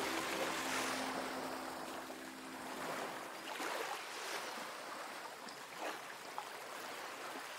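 Ocean waves washing in, a soft hiss that swells and ebbs. Faint held music notes fade out in the first three seconds.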